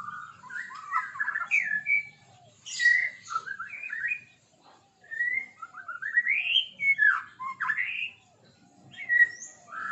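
White-rumped shama (murai batu) singing: a run of varied, rich whistled phrases sliding up and down in pitch, delivered in bursts with short pauses between them.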